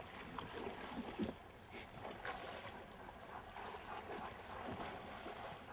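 Faint steady noise of water and a light breeze, with a few soft scattered clicks.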